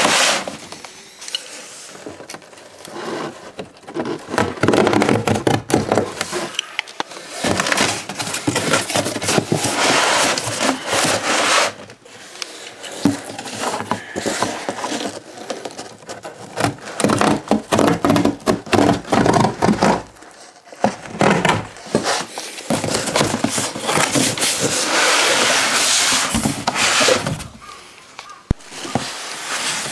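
Corrugated cardboard being handled while a chainsaw is packed: rustling, scraping and crackling as it is folded, rubbed and pushed into place by hand. It comes in long bursts with a few short pauses.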